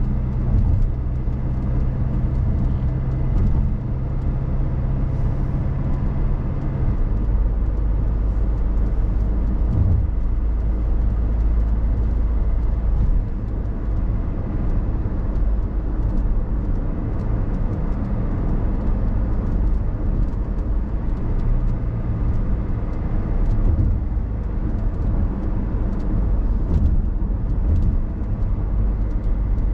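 A car driving: steady engine hum and road rumble, with the low engine note dropping about seven seconds in and shifting again near the middle.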